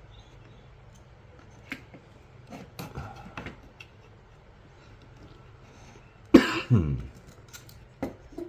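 A person coughs once, loudly, a little past the middle, its pitch sliding down, among a few faint clicks and taps of small tools.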